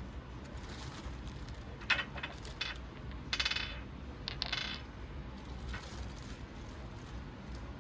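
Small metal objects clinking and jingling: a few sharp clicks followed by short bursts of light metallic rattling, clustered in the middle few seconds, over a low steady background hum.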